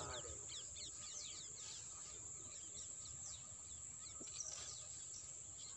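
Birds chirping: many short, quick calls scattered throughout, faint, over a steady high-pitched tone and a low outdoor rumble.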